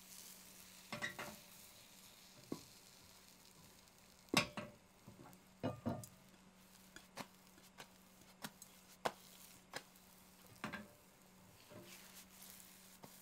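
Teflon-coated frying pan being worked to roll an omelette: about a dozen irregular knocks and taps from the fist striking the pan handle (the 'ton-ton' tapping technique) and the rubber spatula against the pan, loudest about four and a half seconds in, over a faint sizzle of egg cooking.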